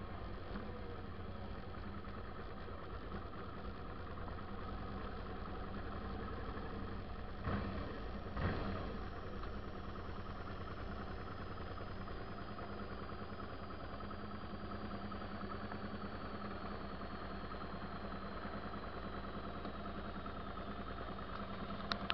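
Suzuki V-Strom 650's V-twin engine idling steadily. About seven and a half seconds in come two thumps a second apart, and a faint high whine slowly falls in pitch through the second half.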